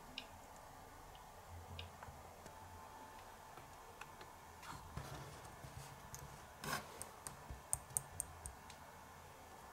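Faint light clicks and taps of tiny plastic and metal miniature kitchen pieces being handled and set down on a wooden tabletop, with one louder tap and then a quick run of sharp little clicks near the end.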